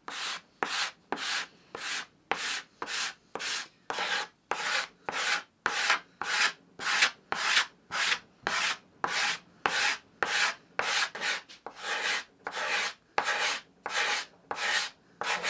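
Steel card scraper shaving a thin wooden guitar top in quick, even strokes, about two a second, each a dry scraping rasp, to flatten an uneven glue joint.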